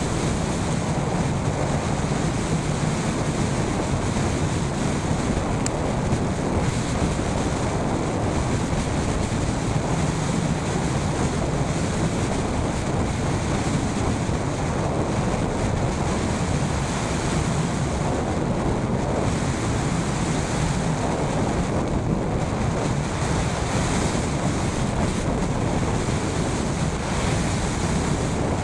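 Steady rush of airflow buffeting the microphone of a hang glider in flight.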